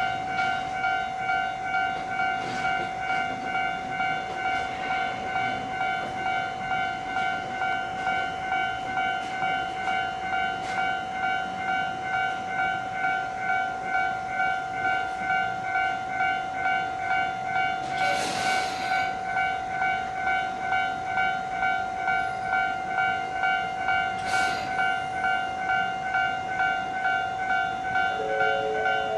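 An electronic warning tone beeps steadily about twice a second at a railway station while a Shinano Railway 115-series electric train runs slowly in over the tracks. Two short hissing bursts come about two-thirds of the way through, and a second, lower set of tones joins near the end.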